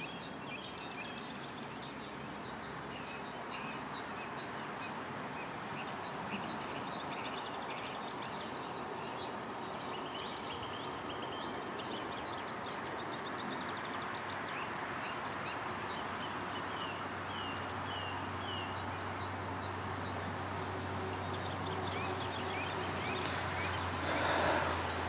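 Outdoor ambience: several small birds singing, with repeated short chirps and trills over a steady background hiss. A low steady hum comes in about halfway through, and there is a brief louder noise near the end.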